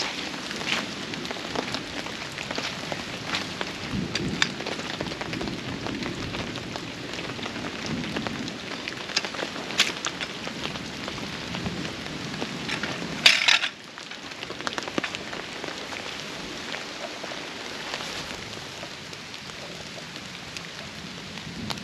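Rain falling and pattering on surfaces, with scattered sharp ticks of single drops. A brief loud noise about 13 seconds in, after which the rain sounds quieter.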